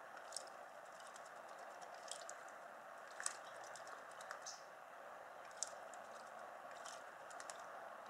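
American robin bathing in a shallow birdbath: faint, brief splashes and flicks of water at irregular intervals, about one a second, over a steady background hiss.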